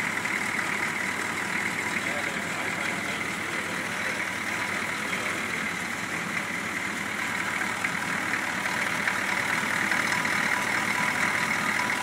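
Chevrolet C-30's 6.2-litre V8 diesel engine idling steadily, heard close up in the open engine bay.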